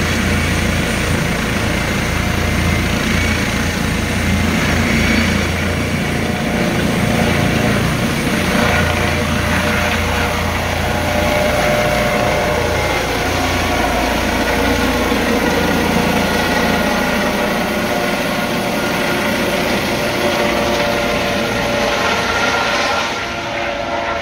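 Eurocopter EC155 helicopter running, its twin Turbomeca Arriel turbines giving a steady whine over a deep rotor rumble. The deep rumble fades away about two-thirds of the way through while the whine goes on.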